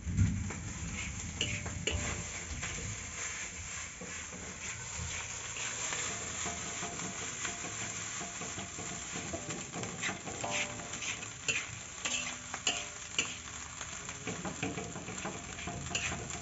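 Fried rice sizzling in a metal wok while a spatula stirs and tosses it, scraping and clinking against the pan. The scrapes come more often from about ten seconds in.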